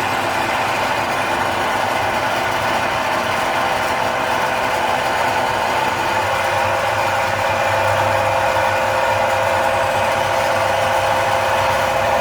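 A machine running steadily with a droning hum of several fixed tones, growing stronger about six seconds in.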